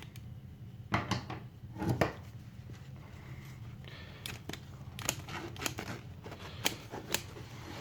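Trauma shears cutting through heavy work-pants fabric: two strong cutting strokes about one and two seconds in, then a run of short, sharp snips as the blades close.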